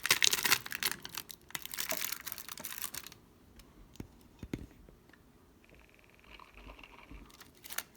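Wrapper of a jumbo pack of 1992-93 Upper Deck basketball cards crinkling and tearing as it is pulled open by hand, for about three seconds. After that, only a few soft ticks from the cards being handled, and more crinkling just before the end.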